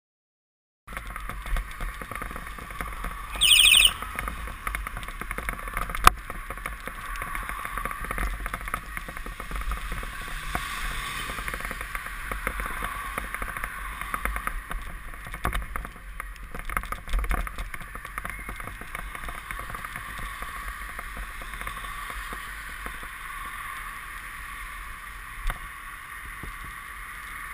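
Steady rush of wind and wet-road tyre noise picked up by a bicycle-mounted camera riding in the rain, over a low rumble. About three and a half seconds in, a Hornit bicycle horn gives one shrill, very loud blast lasting about half a second. A sharp click follows a couple of seconds later.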